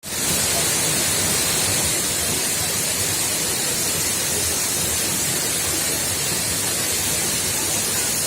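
Waterfall running: a steady, even rush of falling water with a strong high hiss.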